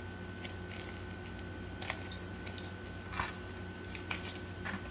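Quiet room tone with a steady low hum and a thin high whine, broken by about four soft, short clicks.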